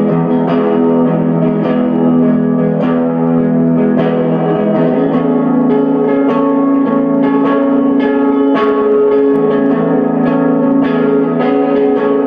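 Guitar music: a guitar plays an instrumental passage of sustained chords with plucked notes, without singing.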